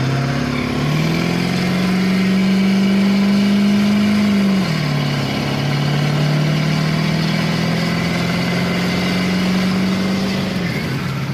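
Ford 7.3 Power Stroke V8 turbo-diesel in an F-350 pulling hard under acceleration on the 140-horsepower tune: the engine note climbs, drops at an upshift about halfway through, climbs again, then falls back as the throttle eases off near the end.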